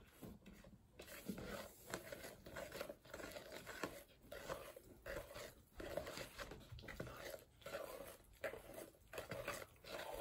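Thick brownie batter being stirred by hand with a spoon in a plastic mixing bowl: faint, sticky scraping strokes in an uneven rhythm, about one or two a second.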